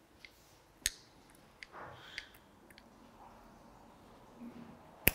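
Small, sharp metal clicks and light handling noise as a connecting-rod bearing shell is pressed into its seat in the rod's big end; a sharper click about a second in and the loudest one near the end.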